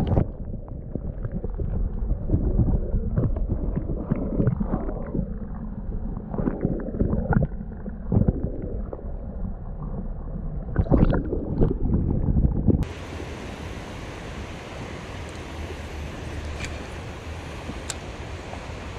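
Muffled underwater sloshing and knocking heard through a submerged action camera's housing, uneven swells and thumps with the high end cut away. About thirteen seconds in it comes back into open air: a steady rush of water flowing over the low dam.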